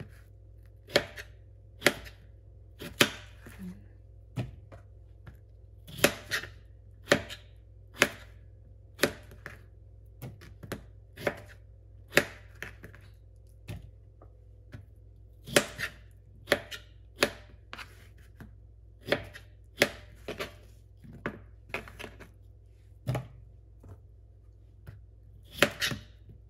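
Chef's knife cutting potatoes into chunks on a plastic cutting board: sharp knocks of the blade hitting the board, about one a second and unevenly spaced, with short pauses.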